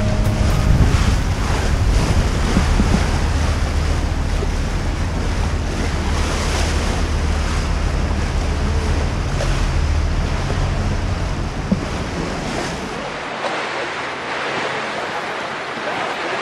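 Wind buffeting the microphone and water rushing past a moving tour boat, over the steady low drone of the boat's engine. About thirteen seconds in, the engine drone drops away abruptly, leaving only the wind and water.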